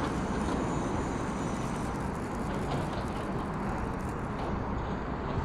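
Steady jet engine noise from Air Force Two, a twin-engine Boeing C-32 (military Boeing 757), on final approach with its landing gear down.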